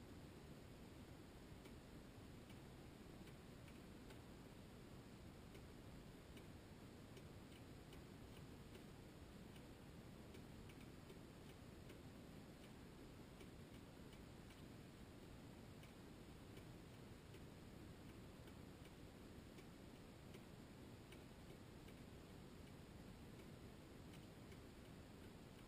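Near silence: room tone with faint light ticks, about one or two a second, irregularly spaced.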